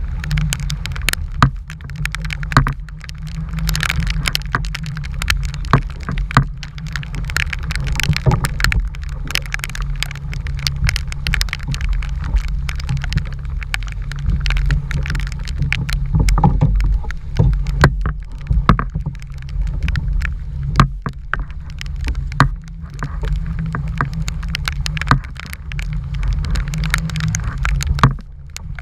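Strong gale-force wind rumbling on the microphone, with many scattered sharp taps and clicks, such as hail or rain striking nearby, throughout.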